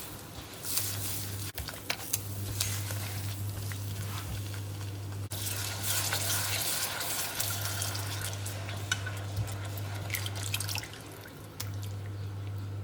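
Food sizzling in a pan on the stove as it is stirred, with scattered clicks of the utensil against the pan over a steady low hum.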